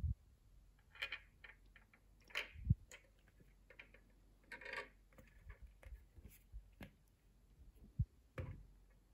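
A Perplexus plastic sphere maze being turned in the hands: the small ball inside rattles and rolls along the plastic tracks in several short clattering bursts, with a few dull knocks of the hands shifting on the plastic shell.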